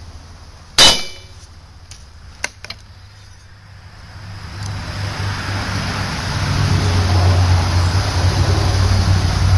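A sledgehammer strikes the bent crankshaft of a Briggs & Stratton push-mower engine once, with a single ringing metal clang about a second in, to bend it back straight. A few light metal clicks follow, then a steady low mechanical hum builds over the second half.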